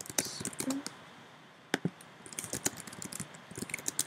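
Computer keyboard keystrokes: a few scattered clicks, then a quick run of typing from about two seconds in.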